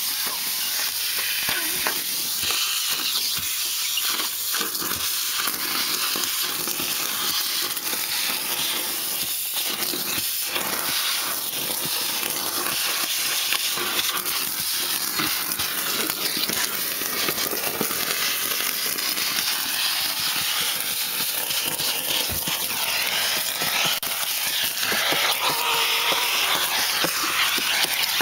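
Vacuum suction running through a homemade cyclone dust separator: a steady rushing hiss, with irregular crackles and ticks as dry leaves and debris are sucked up the hose.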